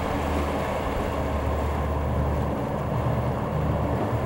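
Triple Yamaha 350 V8 outboard motors running steadily with the boat underway at sea: a low, even engine drone under the rush of wind and water.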